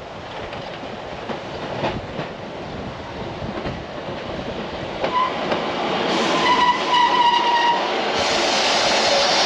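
Train approaching along the line, growing steadily louder, sounding its horn for about two seconds a little past halfway, then a loud rush of the train arriving close by near the end.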